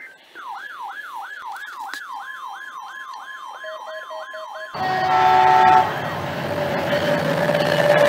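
An electronic siren sweeping rapidly up and down, about three sweeps a second, over a steady tone. About four and a half seconds in it cuts off abruptly to a loud, brief chord of horn tones, then the steady rumble of a passing diesel passenger train.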